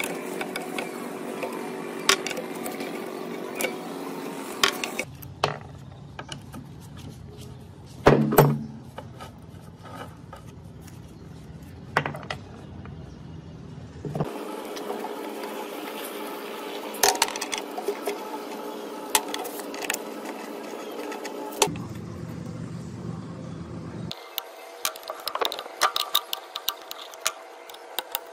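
Hand tools working on a rusty cast-iron gearbox: scattered metal clicks, taps and knocks as a socket wrench undoes bearing-cap bolts and a flat bar pries at the caps. One louder knock comes about eight seconds in, and the background changes abruptly several times between short stretches.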